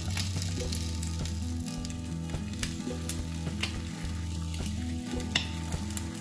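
Food frying in a pan with a steady sizzle, broken by a few sharp clicks.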